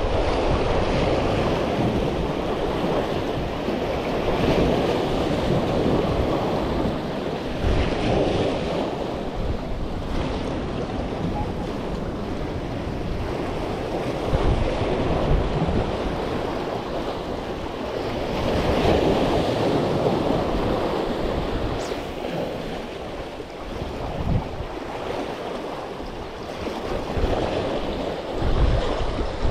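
Waves washing in, the surf noise swelling and fading every several seconds, with wind buffeting the microphone.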